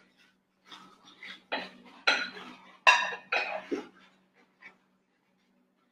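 Metal spoon clinking and scraping against a stainless steel pot and plates while stew is served: a handful of short clinks over a couple of seconds, the loudest ringing briefly, with a faint steady low hum underneath.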